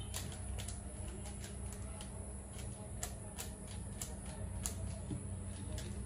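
Rubik's cubes being twisted by hand: irregular sharp plastic clicks of the layers turning, several a second, over a low steady hum.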